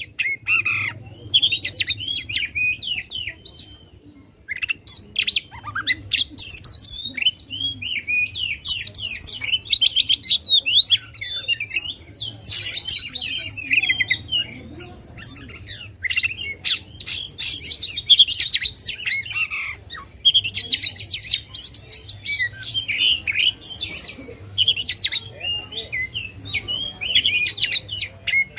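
Oriental magpie-robin (kacer) singing a loud, varied song of whistles, rapid trills and harsh rattling notes, with a brief lull a few seconds in and another about two-thirds through. It is the aggressive, fast-delivered 'ngobra' song that keepers play to provoke rival magpie-robins.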